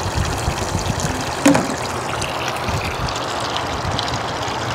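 Steady splashing of pumped water running through a homemade bucket pond filter and pouring from its PVC outlet pipe into the pond. A single brief knock about a second and a half in.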